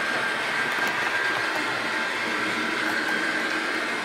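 HO-scale model train running on the layout's track: a steady whine from its small electric motor over the rolling noise of the wheels on the rails.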